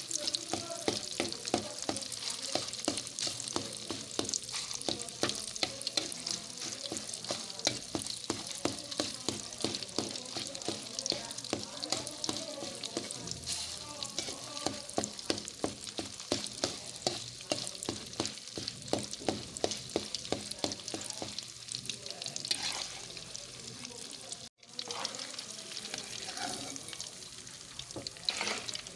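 Pangas fish fat sizzling and crackling in hot oil in a pan as it renders out its oil, with constant sharp pops and spatter. A metal spatula stirs and turns it. The sound cuts out for a moment near the end.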